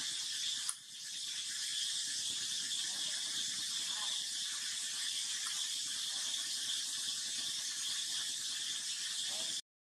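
Steady high-pitched outdoor hiss, with a click and a brief drop about a second in and a few faint short rising squeaks; it cuts off suddenly just before the end.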